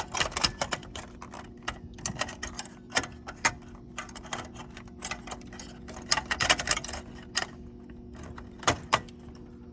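Irregular plastic clicks and rattles of cable connectors in a Canon 3530 copier being pinched and pulled off, coming in quick clusters, over a steady low hum.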